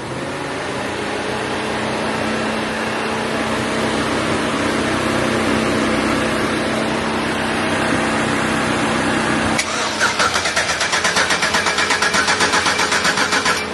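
Swapped-in 6.2-litre V8 running just after its first start on a newly fitted Holley Hi-Ram intake, steady at first. About ten seconds in it changes to a louder, fast pulsing of roughly four beats a second.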